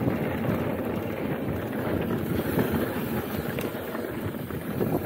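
Wind buffeting the microphone of a camera on a moving mountain bike, a steady low rushing rumble with a few faint clicks from the bike and trail.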